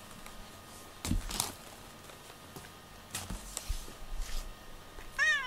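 A few soft rustles and knocks from a cat nosing at a cardboard box. Near the end comes one short cat meow whose pitch rises and falls.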